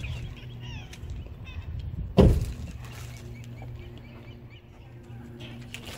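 A steady low hum with a few faint high chirps, and one loud thump about two seconds in.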